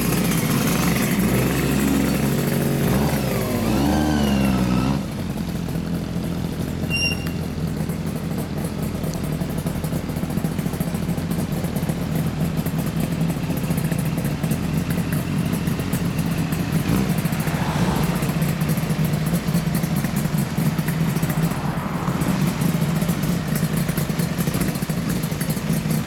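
Two motorcycle engines: a Yamaha FZ400 four-cylinder with an Asahina Racing aftermarket exhaust and a Kawasaki KH400 two-stroke triple. They rev with rising and falling pitch for the first few seconds, then drop to a steady run and idle, with a couple of brief throttle blips later on.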